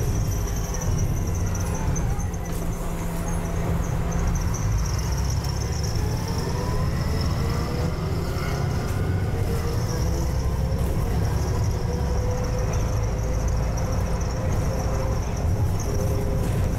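Double-decker bus under way, heard from the upper deck: a steady low engine and road drone, with a faint whine that rises and falls in pitch as the bus moves along.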